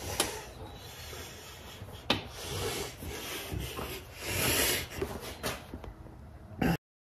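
Handling noise from a hand fumbling with and rubbing over the recording camera, with a few sharp clicks and knocks and a louder stretch of rubbing about four and a half seconds in. The sound cuts off abruptly as the recording stops.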